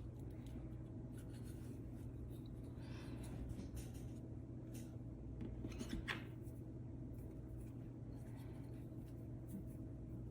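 Light clicks and short scraping and rubbing sounds of small parts being handled, loudest about three and six seconds in, over a steady low electrical hum.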